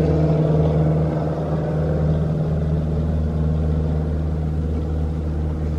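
Airplane flying overhead, its engine a steady drone.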